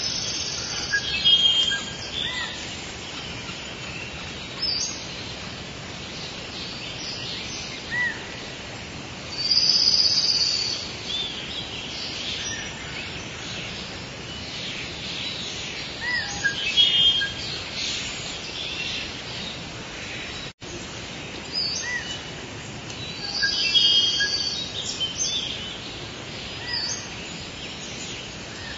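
Rainforest ambience recording: tropical birds calling again and again over a steady background hiss of the forest, with a brief dropout about two-thirds of the way through.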